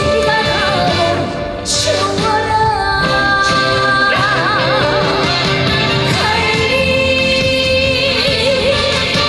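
A female trot singer singing live over a band accompaniment, holding long notes with a wide, wavering vibrato.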